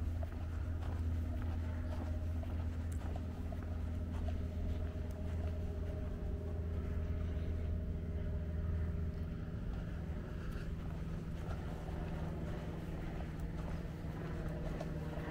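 A steady low engine drone with a few faint humming tones over it, holding an even level throughout.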